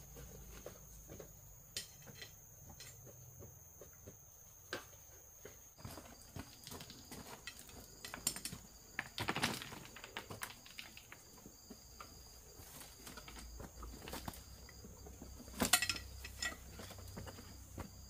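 Footsteps and rustling through forest undergrowth, irregular crackles and snaps with a couple of louder ones, over a steady high-pitched insect drone that turns into a pulsing trill partway through.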